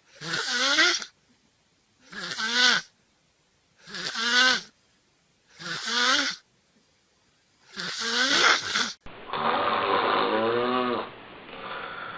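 Snoring: five loud snores about every two seconds, each with a wavering, pitched rattle. About nine seconds in, a different recording takes over with one longer pitched snore, then quieter breathing noise.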